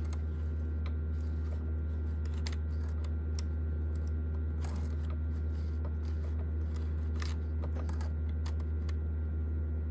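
Steady low hum with scattered light metallic clicks as a sewing machine's rotary hook turns slowly under the needle plate, catching the upper thread and carrying it in a loop around the bobbin case.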